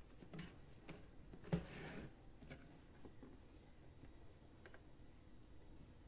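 Faint, scattered clicks and taps of a small speaker driver and its mounting screws being handled and seated in the enclosure cutout, with one sharper click about a second and a half in.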